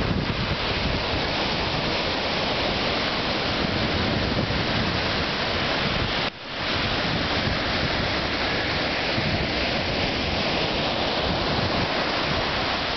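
Surf breaking and washing up a sandy beach, with wind buffeting the microphone. The sound drops out for a moment about six seconds in, then comes straight back.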